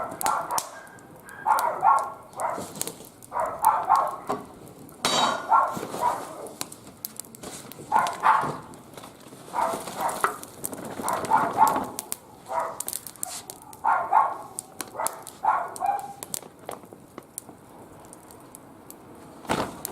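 Wood fire crackling in a barbecue grill, with sharp pops scattered throughout. Over it a dog barks repeatedly, a call or a short cluster of calls every second or two, which stop a few seconds before the end.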